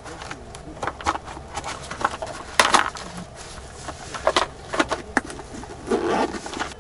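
Handling noise: clicks and rustles of a clear plastic tackle box and a soft fabric case being handled, with one sharp click about two and a half seconds in.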